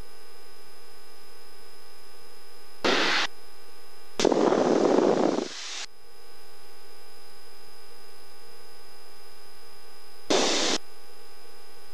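Steady hiss and hum from an aircraft's radio and intercom audio feed, broken by three short bursts of radio static: a brief one about 3 seconds in, a longer and louder one from about 4 to 6 seconds in, and another brief one near the end.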